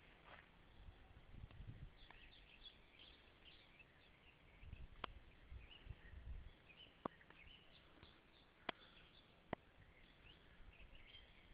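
Faint birds chirping and twittering, with four sharp clicks in the second half.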